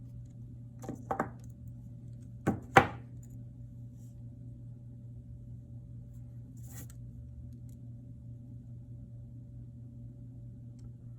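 Sharp little clicks of steel jewelry pliers on a small brass crimp bead and jump ring: two quick pairs, about a second in and about two and a half seconds in, the second pair loudest, then one faint click near seven seconds.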